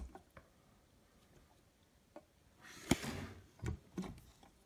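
A few small plastic clicks and taps from handling a Victrola VSS-890BT suitcase turntable's tonearm and its rest. A brief rustle about three seconds in holds the sharpest click, and two more clicks follow near the end.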